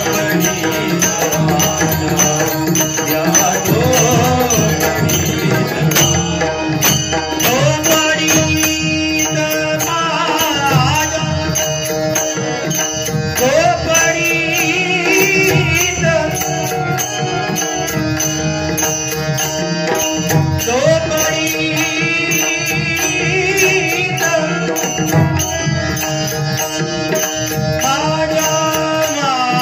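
Devotional bhajan singing in raga Bhairavi: a man's voice sings long, gliding phrases over a steady held drone, with a drum and small hand cymbals keeping a regular beat.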